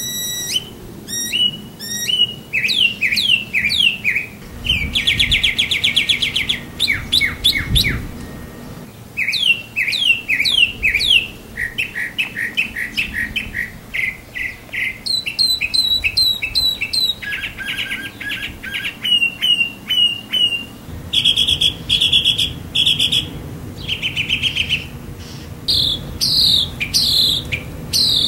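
Northern mockingbird singing a long, continuous run of varied phrases. Each phrase is repeated several times in quick succession before it switches to the next: sharp down-slurred notes, buzzy trills and rapid chattering runs.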